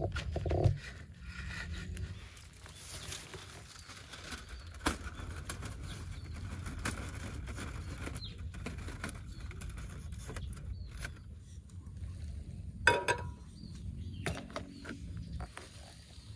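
Metal clicks and knocks from a portable gas camping stove being set up: a folding aluminium windscreen handled, a gas canister fitted and a pot set in place. The loudest knock comes about 13 seconds in. Under it all runs a steady low rumble of wind on the microphone.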